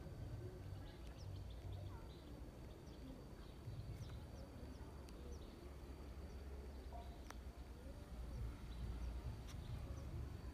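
Faint, scattered high chirps of small birds over a steady low rumble, with a few sharp clicks.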